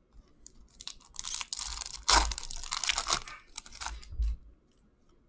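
A hockey card pack's wrapper being torn open and crumpled by hand, with the cards rubbing and flicking as they are pulled out and flipped through. It is a dense crackling rustle that starts about a second in, is loudest near the middle and stops about a second before the end.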